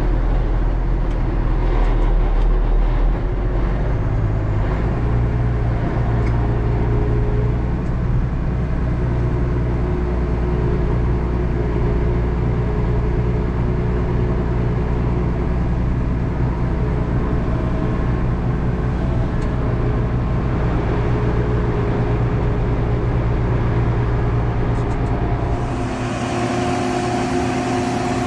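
Large diesel tractor engine running steadily, stepping up in revs about four seconds in, as it pulls a stuck combine out on a chain. The sound changes about two seconds before the end.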